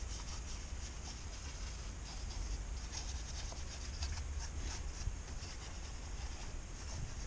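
Rubbing and scrubbing strokes of an engine bay being cleaned by hand, short hissing strokes repeating irregularly over a low steady rumble.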